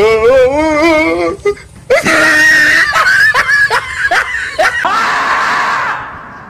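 Comedy sound effects dubbed over the video: a warbling, high-pitched squealing cry, then after a short gap a long loud scream that fades out near the end.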